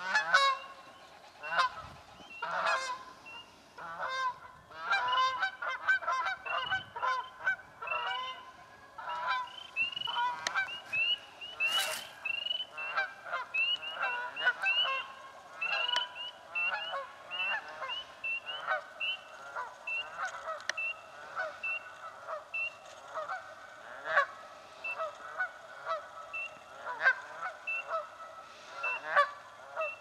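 Canada geese honking, many calls overlapping densely in the first half and coming more spaced and regular later: a territorial squabble over nesting spots.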